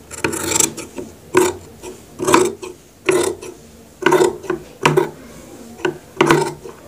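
Large tailor's shears snipping through trouser fabric in a row of crisp cuts, about one a second, as the blades work along a curved pocket edge.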